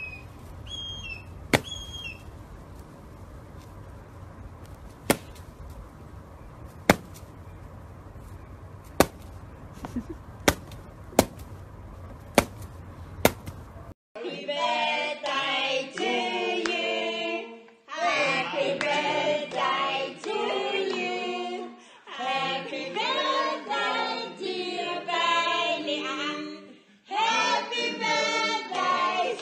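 A secretary bird striking a snake with hard kicks of its feet, about nine sharp knocks spaced one to two seconds apart, with small birds chirping faintly in the first couple of seconds. Then a group of people singing together in four phrases with short pauses between them.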